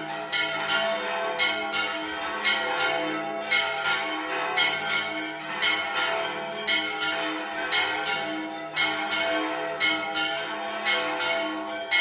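Church bells in a stone bell tower ringing, with strokes about once a second that ring on into one another and a few quicker extra strokes between them.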